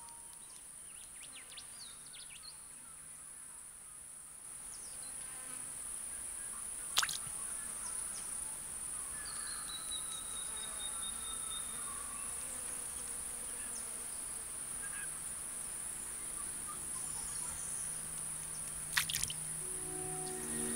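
Outdoor ambience dominated by insects chirring in a steady high-pitched drone, with two sharp clicks, one about a third of the way in and one near the end.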